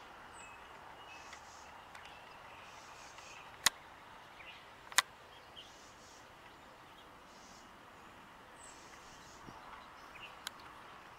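Quiet open-air ambience with faint, scattered bird chirps and a faint high buzz pulsing about once a second. Two sharp clicks about four and five seconds in are the loudest sounds, with a smaller click near the end.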